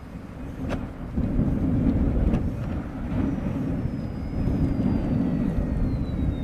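Strong wind buffeting the microphone in a gusty low rumble, with the faint whine of a small electric RC plane's motor and propeller sliding slowly down in pitch.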